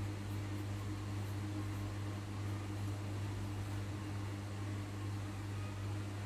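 Steady low electrical hum with a faint even hiss.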